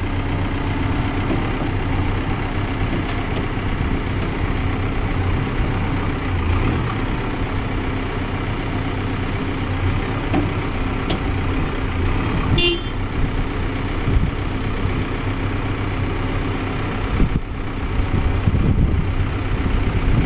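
Caterpillar 420F backhoe loader's diesel engine running steadily, with a short sharp sound about twelve seconds in.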